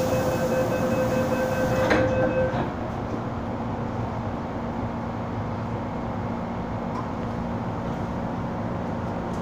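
MTR M-Train door-closing warning sounding as rapid beeping over a steady tone, ending with a thud as the doors shut about two seconds in. Then the car's steady hum and rumble.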